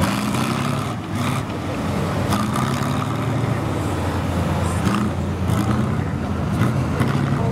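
Half-track armoured personnel carrier driving on dirt, its engine running steadily with small rises and falls in pitch, and a few sharp clanks.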